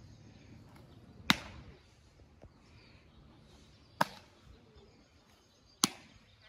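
Softball smacking into leather softball gloves: three sharp pops a couple of seconds apart, about a second in, at about four seconds and near the end.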